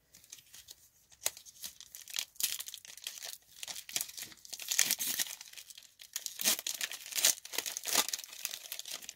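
Foil wrapper of a Pokémon trading-card booster pack being crinkled and torn open by hand, in irregular bursts of rustling that grow louder from about two and a half seconds in.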